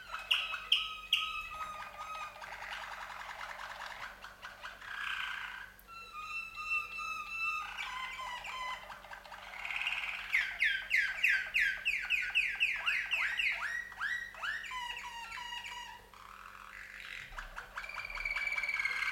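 Two domestic canaries singing together in a duet: a varied canary song of held whistled notes, fast trills and a long run of rapid falling notes, about four or five a second, from about the middle onward.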